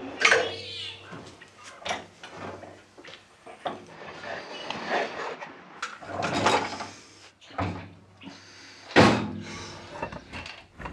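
Metal clunks, knocks and scraping as a Land Rover Series 1 gearbox is worked and shoved into place against the back of an engine at the bellhousing. There are irregular sharp knocks throughout, the loudest just after the start and about nine seconds in.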